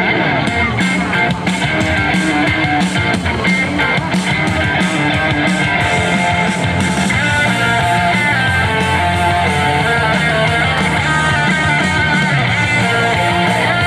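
Loud rock-style music with guitar and a steady drum beat.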